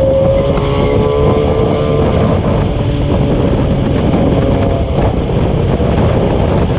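Road vehicle travelling at speed: a steady rumble of engine and road noise under heavy wind buffeting on the microphone, with a faint engine tone held through it.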